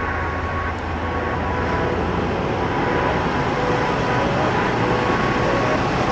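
DAF CF truck's diesel engine running steadily, a constant mechanical noise with no change in speed.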